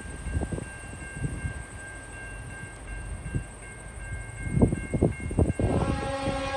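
Low rumble of an approaching diesel-hauled coal train. About six seconds in, the lead locomotive's air horn starts, a steady multi-note chord sounded for the level crossing ahead.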